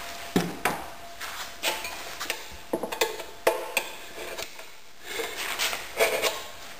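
Screwdrivers used as tire irons clinking and knocking against a dirt-bike wheel rim while prying the rear tire off, in irregular metallic clanks with brief ringing.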